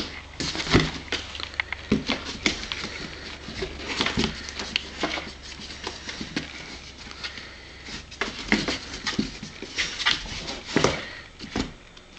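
A cat moving about inside a cardboard box, its paws and claws scratching and knocking on the cardboard in irregular sharp scrapes and taps.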